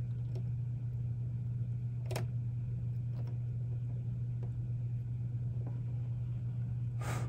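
A steady low hum, with a faint click about two seconds in and a brief hiss near the end.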